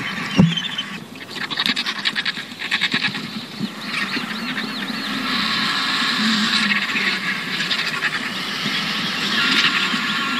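Griffon vultures squabbling over food: harsh hissing and fast rattling calls with wavering squeals, and a thump about half a second in.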